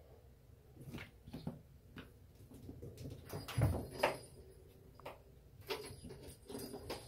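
Kittens scampering and tussling on a hard floor: light patters and scuffs of paws, with a couple of louder thumps about halfway through.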